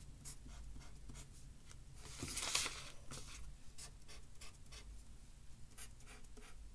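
Marker pen scratching short strokes on paper as small stars are drawn, with one longer, louder scrape about two and a half seconds in.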